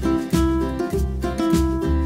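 Background music: a light plucked-string melody over bass notes.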